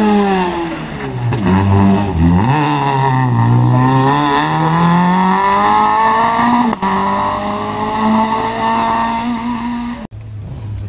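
Rally car engine revving hard: the revs fall as it slows for a hairpin about a second in, then climb through the gears as it accelerates away, with a brief break for a gear change near seven seconds. The sound cuts off suddenly near the end and another car's engine starts up.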